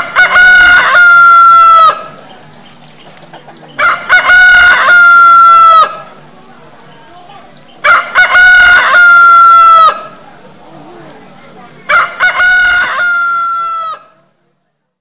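A rooster crowing loudly four times, each crow about two seconds long and spaced about four seconds apart, the crows near-identical in shape. The sound cuts off abruptly near the end.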